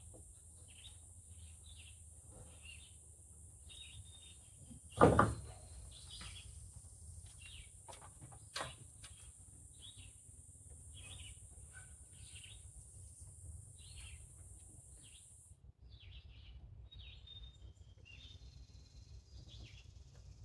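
Small birds chirping over and over, with one loud thump about five seconds in and a sharper knock a few seconds later. A steady high hiss stops abruptly about three-quarters of the way through.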